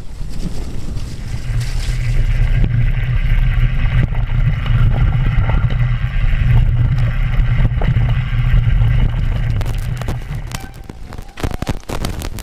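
Wind buffeting a GoPro microphone while a mountain bike runs fast down a rough, stony trail, with tyre rumble and the bike rattling. Near the end the steady rush drops away and a run of sharp knocks and clatters follows as the bike hits rocks.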